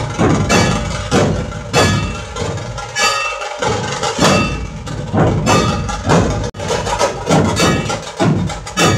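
Dhol-tasha ensemble playing: many large barrel-shaped dhols beaten together with sticks, with tasha drums cracking above them, in a loud, heavy repeating rhythm of strong strokes with ringing tails.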